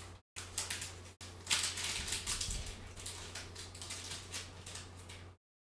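Quick irregular clicking and tapping, like typing on a computer keyboard, most of the way through, over a steady low hum. The sound cuts out briefly near the start and stops abruptly near the end.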